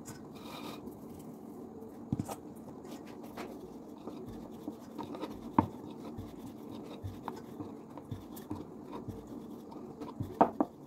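Wooden rolling pin rolling out roti dough on a round rolling board: a soft rubbing with scattered light knocks as the pin moves. There is a sharper knock about halfway through and a few more close together near the end.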